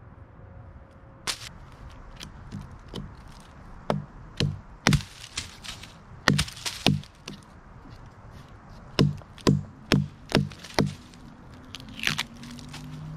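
A hatchet set into a pine log, its back struck with a wooden baton to split out resin-rich fatwood. Sharp knocks come in short runs of three to five, about two a second, with pauses between.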